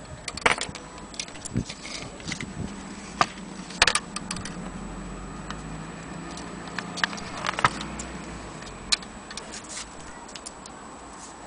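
Irregular sharp metallic clicks and knocks from an antique Vienna wall clock's brass movement as it is handled, with a faint low hum in the middle.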